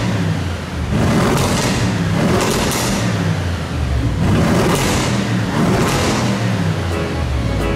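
Audi RS6 Performance's 4.0-litre twin-turbo V8 on its original factory exhaust, revved again and again while standing still, the pitch rising and falling about once a second.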